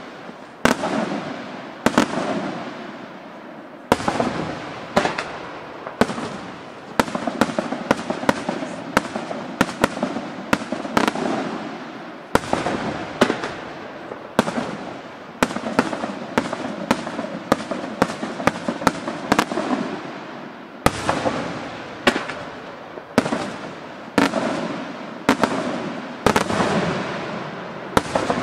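Aerial fireworks display: a steady barrage of shell bursts, one or two sharp bangs a second, each trailing off in echo.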